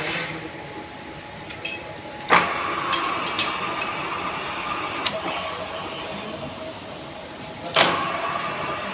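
Two sharp metallic strikes about five and a half seconds apart, each ringing on briefly, with a few lighter metal clinks between them over a steady mechanical background.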